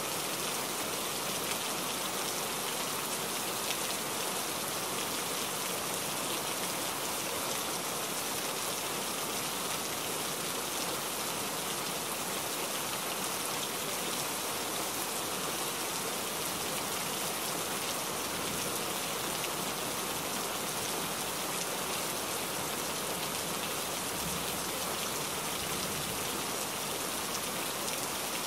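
Heavy rain and road spray hissing steadily against a moving truck's cab and windshield, heard from inside the cab as an even hiss with no engine note standing out.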